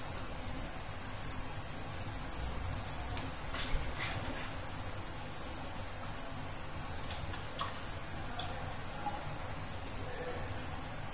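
Water running steadily from the tap into a stainless steel surgical scrub sink, with soft rubbing of soapy hands and forearms being lathered during a surgical hand scrub.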